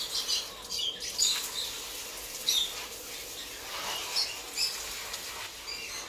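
Lovebirds chirping: scattered short, high-pitched chirps.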